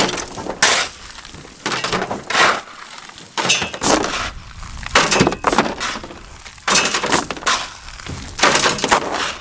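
Crushed gravel shovelled into a pickup truck's bed: shovelful after shovelful of stone thrown in, clattering onto the plastic bed liner and the gravel already there.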